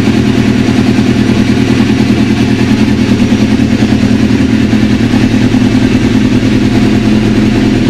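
2003 Suzuki GSX-R600's inline-four engine idling steadily through a freshly fitted aftermarket Micron exhaust, a loud even burble.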